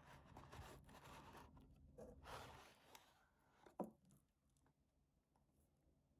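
Faint scratchy rustling of paper or packaging being handled, in two stretches, then a single sharp knock a little past halfway.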